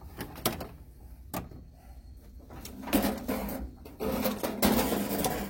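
A metal tool chest drawer sliding, first a few sharp clicks, then two longer rattling slides with loose parts shifting inside, the second the loudest and ending abruptly as the drawer shuts.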